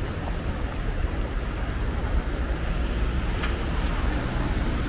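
City street traffic: a steady rumble of cars and vans passing on a busy road.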